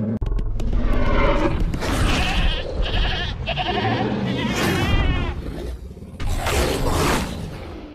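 Dinosaur roar and growl sound effects, several calls in a row, one warbling about two-thirds in, over a deep rumble.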